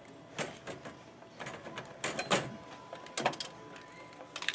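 Hands maneuvering a scanner-scale unit in a checkout counter's stainless-steel well: a handful of sharp knocks and rattles, loudest a little past the middle.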